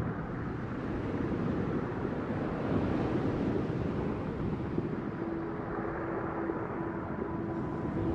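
Ambient ocean-sound soundtrack: a steady, low rushing noise with no beat, and a faint held note coming in about five seconds in.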